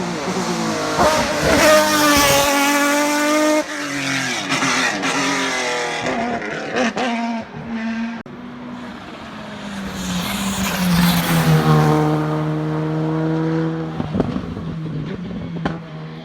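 Hillclimb race car engine at full throttle, its note climbing and breaking off sharply at a gear change, then building again to a steady high note before dropping away. A few sharp cracks near the end.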